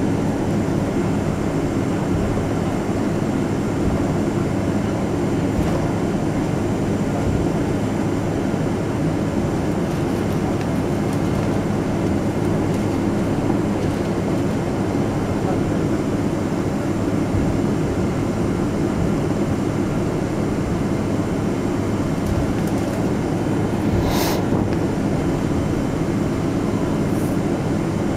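Steady drone of a Boeing 777-200ER heard inside the cabin: engine and airflow noise with a low hum, unchanging throughout, and one short click near the end.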